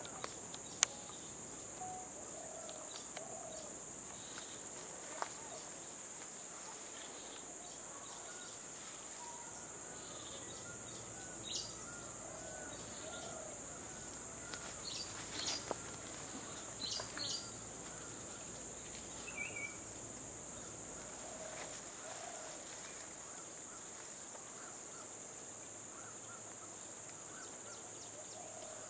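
Steady high-pitched insect drone in forest, with scattered short bird calls and a quick run of chirps about ten seconds in. A single sharp click comes under a second in.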